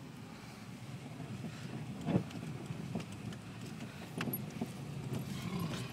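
Subaru car driving on a snow-covered road, heard from inside the cabin: a low steady rumble of engine and tyres, with a few sharp knocks about two, four and nearly six seconds in.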